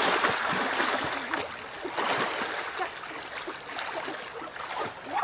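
Water splashing and churning as people wade quickly through a chest-deep stream, louder at the start and easing off.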